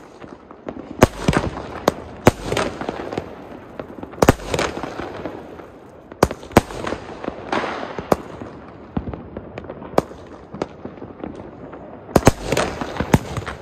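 Firework bangs going off one after another at uneven intervals of about one to two seconds, some in quick pairs, each a sharp crack with a short fading tail.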